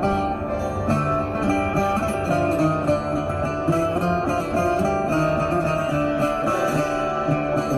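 A busker's stringed instrument, laid flat across his lap, being plucked: a melody of separate notes with a line of lower bass notes moving beneath it, played without a break.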